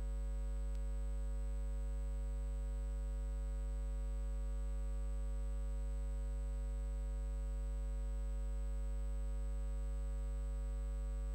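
A steady, unchanging electronic drone: a strong low hum with a set of fixed tones above it and a thin high whine, none of it rising or falling.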